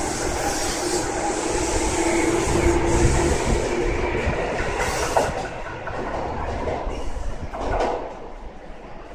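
Tobu 6050-series electric train pulling out of the station, its wheels clacking over the rail joints. The running noise fades after about five seconds as the train moves away.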